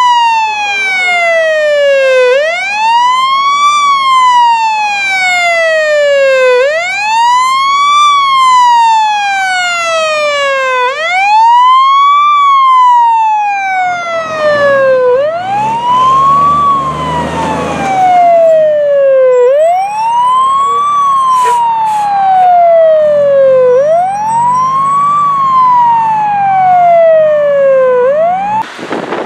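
Fire engine siren on wail: its pitch rises quickly and falls slowly, repeating about every four seconds. The truck's engine rumbles underneath in the second half as it pulls out.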